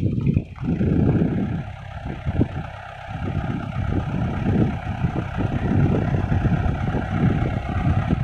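Four-wheel-drive truck engine running under load, a low uneven rumble that rises and falls, dipping briefly about two and three seconds in.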